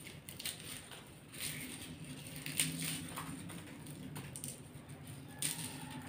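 Faint, dry crackling and rustling of a garlic bulb's papery skins as it is broken apart into cloves by hand, with scattered small snaps and ticks.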